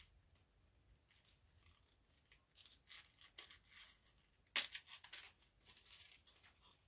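Faint handling noises from a small package of eyeshadow pans: scattered light clicks and crinkles, with a short cluster of louder clicks about two-thirds of the way through.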